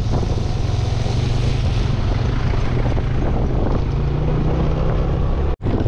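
A small engine running steadily at an even speed, with wind buffeting the microphone; the sound drops out for an instant near the end.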